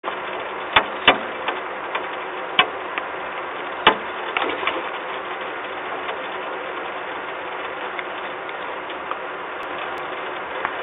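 Rain: a steady hiss with irregular sharp drips tapping on metal, several in the first five seconds and a few more later.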